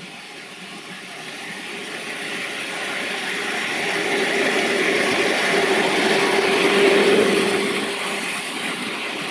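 Miniature railway passenger train with a small diesel-outline locomotive running past on ground-level track: the sound of its wheels on the rails grows steadily as it approaches, is loudest about seven seconds in with a faint steady hum, then eases off as it goes by.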